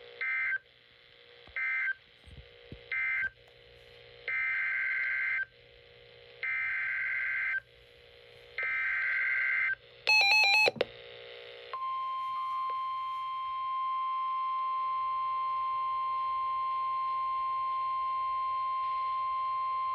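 Emergency Alert System SAME data tones from NOAA Weather Radio. First come three short warbling bursts of the end-of-message code, then three longer bursts of about a second each, the header of the next warning, then a brief burst. From about twelve seconds in, the single steady 1050 Hz weather-radio warning alarm tone sounds.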